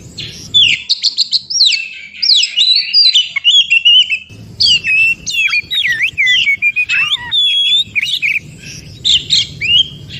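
Oriental magpie-robin singing a rapid, varied song of clear whistles and quick rising and falling slurred notes, broken by a few short pauses.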